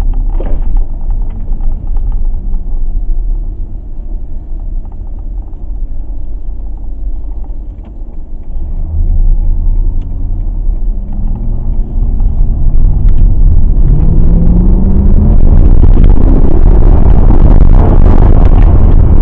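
Mercedes CLK 63 AMG's 6.2-litre V8 running at a steady cruise, then accelerating hard from about eight seconds in. Its note rises and drops back through several upshifts and gets much louder. The engine pulls cleanly, with no misfire showing at this moment.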